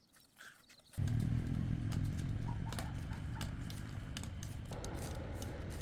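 Steady low rumble of a running motor vehicle that starts abruptly about a second in, with scattered clicks and clatter over it.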